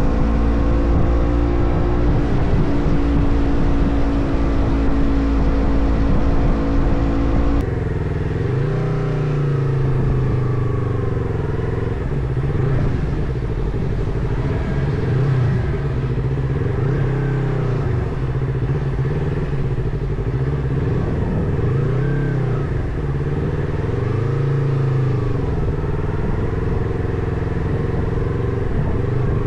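Motorcycle engine running while being ridden, its pitch rising and falling with the revs. The sound changes abruptly about a quarter of the way in, to a lower, steadier note.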